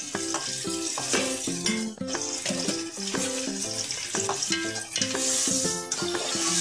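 Chicken pieces sizzling in oil and tomato masala in an aluminium pot while they are stirred with a slotted spoon. Background music with a quick-changing melody plays over it.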